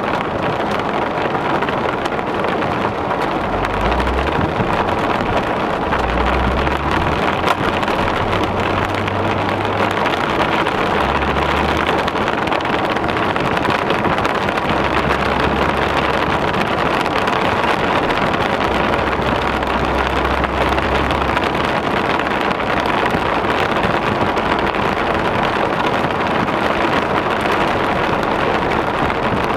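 Heavy rain pounding steadily on a moving car's windshield and body, mixed with tyres hissing on a flooded road. Low rumbles come and go underneath.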